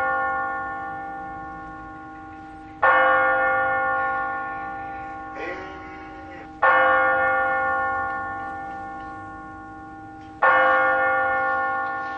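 A single large bell tolling slowly: three strokes about four seconds apart, each ringing on and fading away before the next.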